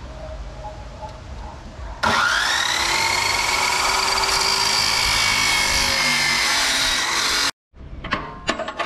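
Abrasive metal cut-off saw starting about two seconds in, its whine rising quickly, then cutting a steel offcut with a loud steady grinding hiss, the whine sagging slightly under load near the end. The sound cuts off suddenly and a few light metallic knocks follow.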